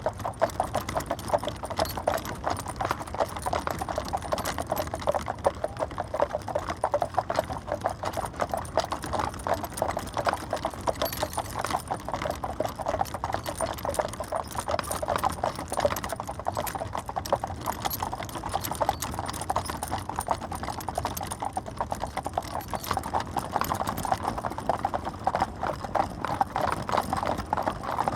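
Horse's hooves clip-clopping steadily on a hard road as it draws a carriage: a dense, unbroken run of hoofbeats over a low rumble.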